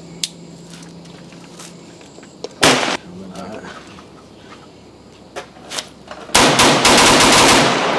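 Gunfire on a shooting range: one loud shot, then a rapid burst of shots lasting over a second near the end, echoing after it, with fainter single shots from other lanes between. The gun is one its owner says often jams, and it jams during this string of fire.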